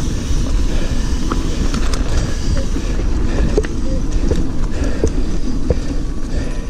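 Mountain bike riding along a dirt singletrack: a steady low rumble of tyres on the trail and wind on the microphone, with scattered light clicks and rattles from the bike.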